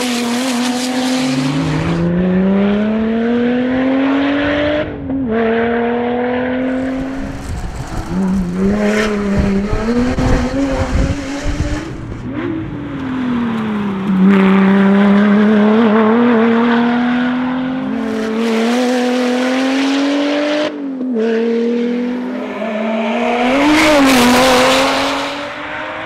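Supercharged V6 Lotus Exige rally car driven hard, heard from the roadside in a string of short passes. The engine note climbs through each gear and drops at every upshift, loudest on close passes about halfway through and near the end.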